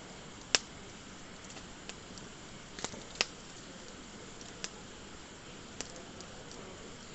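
Wood fire burning with a steady hiss and sharp pops as the wood crackles, the loudest pop about half a second in and a few more scattered after it.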